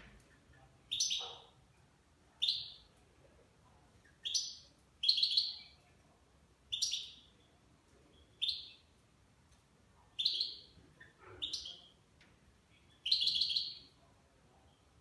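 European goldfinch calling in a cage: about nine short, bright high-pitched calls, one every second or two, a couple of them longer and stuttering.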